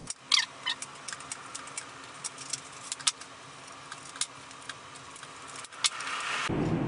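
Pink polystyrene foam being gripped with pliers and pulled out of a foam wing: scattered small clicks and crackles, with a few short squeaks near the start.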